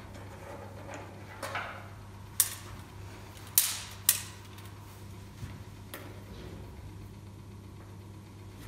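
Folding rule being folded up and opened out, its hinged segments clacking: three sharp clacks in the middle, the second the loudest, with a softer scuffle before them and a couple of faint taps after.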